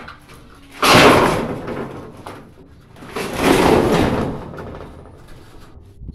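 Corrugated metal roofing sheets clattering and scraping against each other as they are moved: a loud clatter starting suddenly about a second in, then a second one building up around three seconds in.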